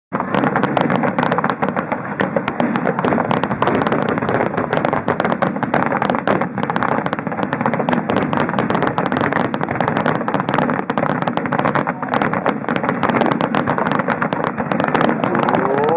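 Aerial fireworks bursting in rapid succession, many pops and bangs overlapping into a dense, continuous crackle.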